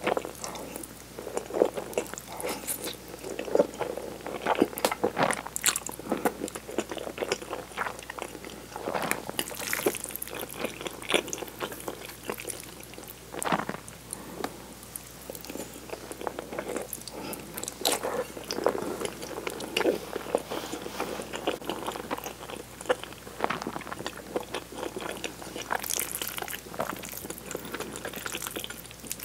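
Tomato cream spaghetti being eaten close to the microphone: noodles slurped into the mouth and chewed, with many irregular wet clicks and smacks.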